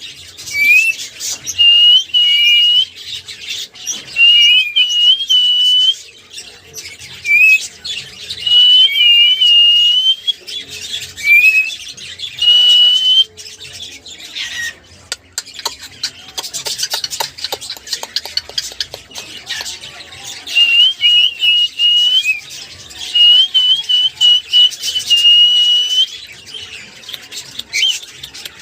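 Cockatiel whistling in short phrases of clear notes, some held and wavering, with a stretch of scratchy chatter and clicks in the middle.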